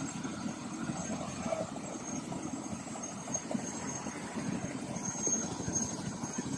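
Helicopter engine and rotor running steadily: a continuous rough rumble with a faint high whine over it.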